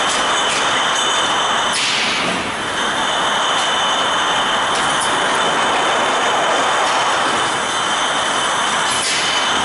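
Glass-bottle depalletizer and its conveyor line running: a loud, steady mechanical din with high ringing tones over it and a few short clicks.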